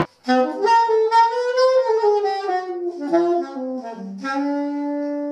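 Saxophone playing a short melodic phrase: a run of notes that slide up and down in pitch, then a long held note near the end.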